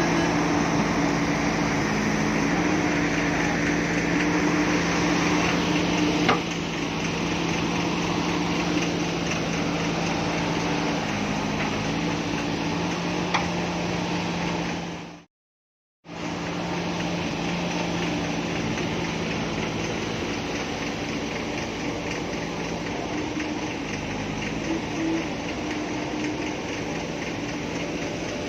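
Heavy diesel engine running steadily, with a constant low engine note. The sound cuts out completely for about a second midway.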